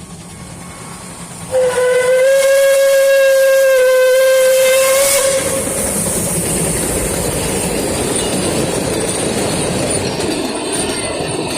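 A Puffing Billy steam locomotive sounds its whistle for about four seconds, starting a second and a half in, in one steady note. It is followed by a steady hiss and running noise as the steam train passes.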